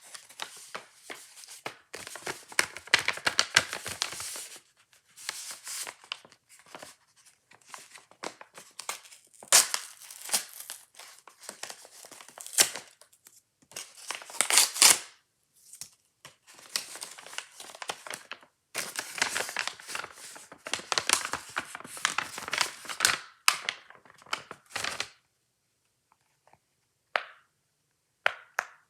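Plastic packaging crinkling and tearing as fidget toys are unwrapped, in irregular bursts that stop about 25 seconds in, followed by a few short scrapes.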